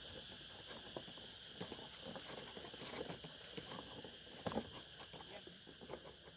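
Irregular rustling and snapping of dry leaves and twigs, with a couple of louder knocks about four and a half seconds in, over a steady high-pitched forest insect drone.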